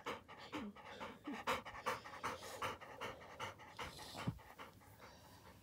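A dog panting quickly right at the microphone, several breaths a second. The panting stops about four seconds in.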